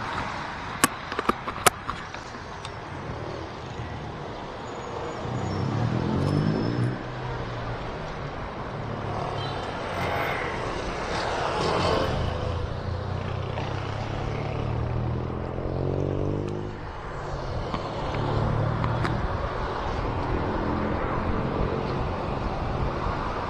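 Road traffic heard while riding: motor vehicles pass one after another, their engine notes rising and falling, over a steady rush of wind and road noise. A few sharp clicks come about a second in.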